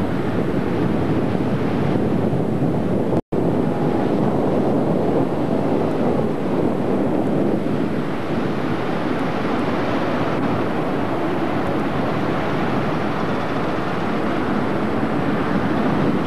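Ocean surf breaking on a sandy beach, a steady rushing wash, with wind buffeting the camcorder microphone. The audio cuts out for an instant about three seconds in.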